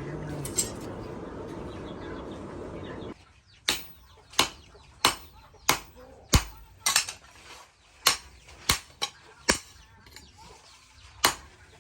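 Hand hammer striking hot steel on an anvil, a dozen or so sharp blows at a steady pace of roughly one every two-thirds of a second. The blows follow about three seconds of steady rushing noise that stops abruptly.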